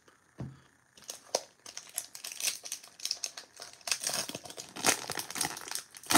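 Plastic wrapper of a Topps baseball card pack crinkling and tearing as it is peeled open by hand: a dense, crackly rustle starting about a second in.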